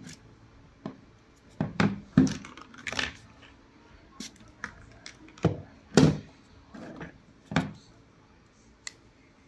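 Sharp knocks and clatters of a smartphone and small hand tools being handled and set down on a work table, about a dozen at irregular intervals.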